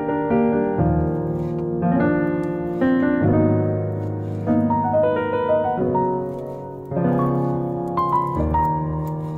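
Background piano music: a slow run of held notes and chords, a new one struck about once a second.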